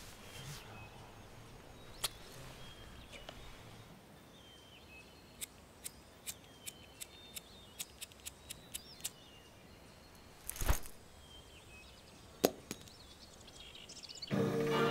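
A cigarette lighter clicked about a dozen times in quick, uneven succession without catching, then a louder knock as it is thrown down, and one more click a little later. Birds chirp faintly behind, and music comes in at the very end.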